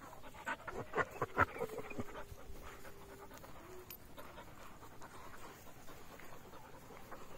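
Large dogs panting, with a quick run of louder, sharper breaths or sounds about a second in, followed by a faint thin whine lasting a couple of seconds.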